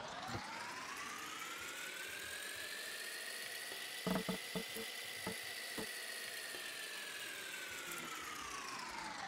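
A whirring sound effect: one tone slowly rises in pitch and then falls again over an even hiss, with a few light clicks about four to six seconds in.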